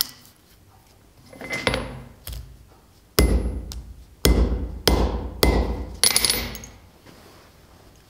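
Hand hammer striking the folded leather belt strap at its forged buckle on a steel anvil: two light taps, then five hard blows about half a second to a second apart, each with a ringing tail from the anvil.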